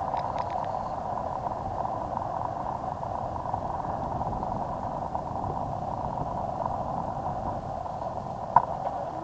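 Raptor E550S electric RC helicopter running steadily in flight, its motor and rotors giving an even whine, with wind rumbling on the microphone. A short sharp click sounds near the end.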